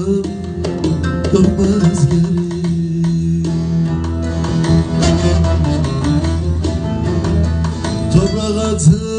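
Bağlama (Turkish long-necked saz) played with a plectrum: a quick picked instrumental passage of many rapid strokes over a steady low drone.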